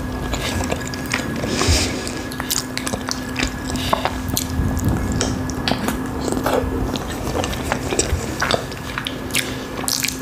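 Close-miked eating sounds: a person biting into and chewing small khinkali dumplings in cream sauce, with many short smacking mouth clicks, over a faint steady hum.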